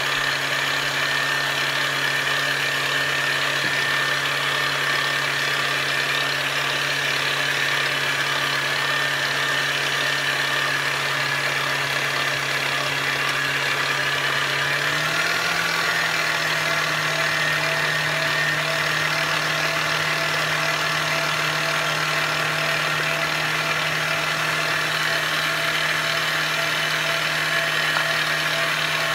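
Electric mixer motor running steadily while beating cake batter. Its hum steps up slightly in pitch about halfway through.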